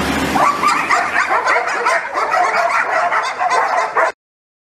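Several dogs barking at once, many short barks overlapping in a dense chorus; it cuts off abruptly about four seconds in.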